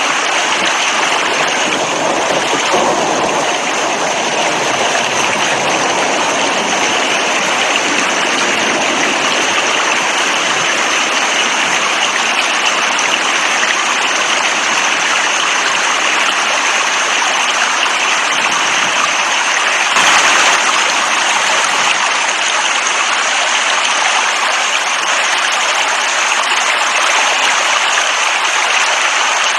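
Steady, even rush of water, rain-like or streaming, with no breaks; it swells briefly about twenty seconds in.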